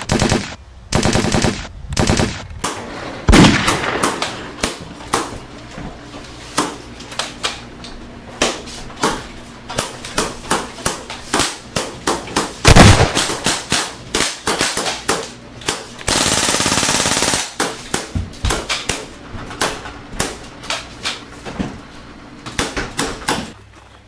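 A gunfight: many gunshots, some single and some in rapid runs like automatic fire, fired irregularly by more than one gun. The loudest shot comes about halfway through, and about two-thirds of the way in there is a second and a half of steady rushing noise.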